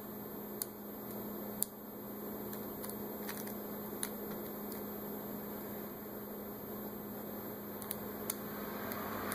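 Lock picking in a doorknob's pin-tumbler cylinder: scattered faint clicks of the pick and tension wrench working the pins, over a steady electrical hum.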